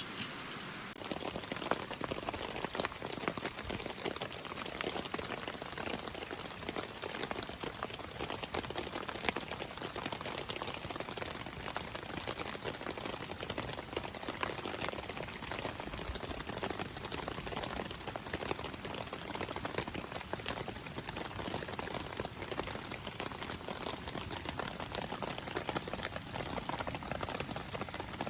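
Wood campfire crackling and hissing steadily, with many small pops.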